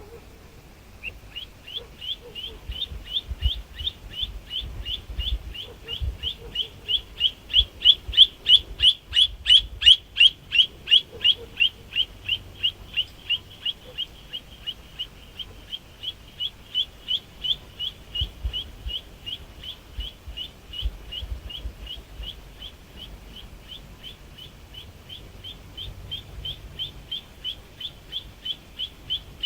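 A songbird calling a long, unbroken series of short, repeated high notes, several a second, loudest about a third of the way through.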